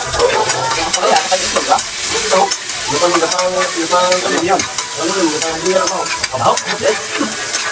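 Tomatoes and onions sizzling in hot oil in a frying pan, stirred with a spatula that scrapes repeatedly against the pan with short rising and falling squeaks.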